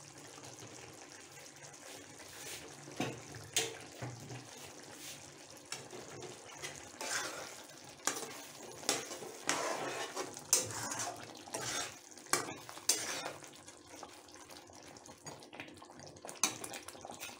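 Metal spatula scraping and clinking against a metal kadai as a thick chicken curry is stirred. The scrapes and clinks come at irregular intervals over a soft hiss.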